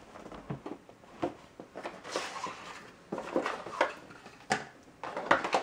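Hands handling a cardboard packaging tray and the accessories inside it: scattered light knocks and clicks with a brief rustle about two seconds in, as cables and items are lifted out.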